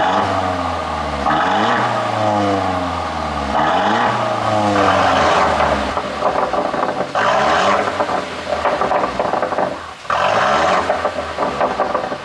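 Exhaust of a Mercedes GLC300e's turbocharged four-cylinder, revved repeatedly in neutral, its pitch rising and falling with each blip. Loud, spluttering crackles and pops on the overrun come from an ECU tune made to give pops and bangs.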